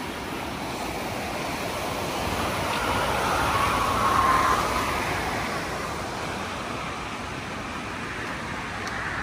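Muddy floodwater rushing and churning through a rain-swollen creek after heavy rain: a steady noise of water that grows louder toward the middle and eases off again.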